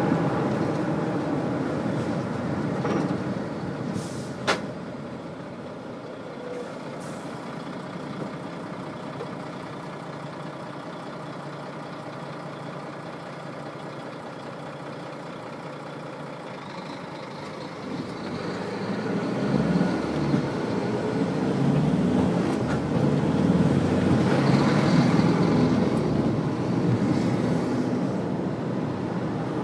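Car driving in city traffic, engine and tyre noise. It dies down to a quieter, steady stretch after about five seconds, with a sharp click just before, then builds again from about eighteen seconds in as the car gets moving.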